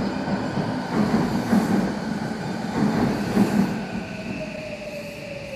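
Odakyu electric commuter train running into the platform and slowing: the wheels rumble and clatter loudly on the rails as the cars pass, then fade. About four seconds in, a whine falling slowly in pitch and a steady high tone come in as it brakes.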